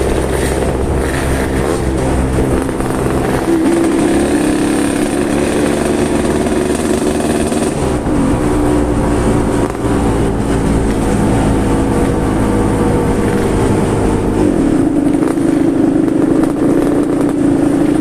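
Yamaha RX-King 135 cc two-stroke single-cylinder motorcycle running with a 'ngorok' (snoring) exhaust note. The engine speed shifts up and down a few times, around four, eight and fifteen seconds in.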